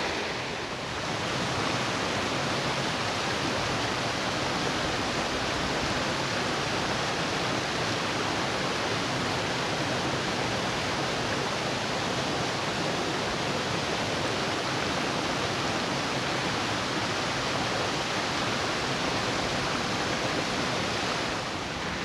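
Steady rush of water tumbling over rocks in a small waterfall and stream, an even hiss with a brief slight dip about a second in.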